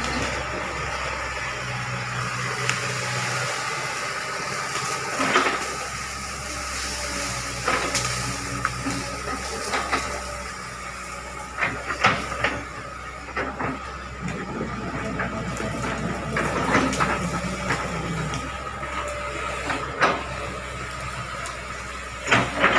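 Hitachi Zaxis 110 hydraulic excavator's diesel engine running steadily under a steady high whine as the machine tracks and works its boom and bucket through palm fronds, with sharp cracks and knocks scattered throughout.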